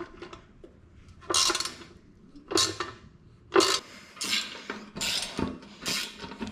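Hand driver with a T25 Torx bit worked at small fender screws, giving a series of short metallic ratcheting rasps about once a second. The screw heads are stripped.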